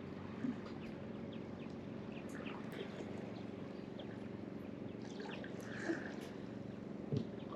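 Birds chirping in short, scattered calls over a steady low hum, with a few light knocks, one about half a second in and two near the end.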